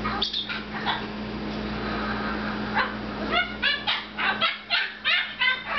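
Red-fronted macaw giving a quick series of short calls, a few per second, starting a little under three seconds in.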